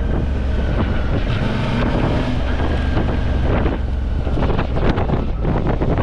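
Heavy wind buffeting the microphone on a moving Suzuki V-Strom motorcycle, with the engine running steadily underneath.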